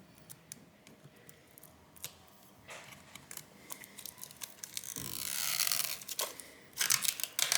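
Small plastic pieces being worked loose inside an opened tablet: light clicks and scratches, then from about five seconds in a louder crinkling, tearing noise of plastic film or tape being peeled.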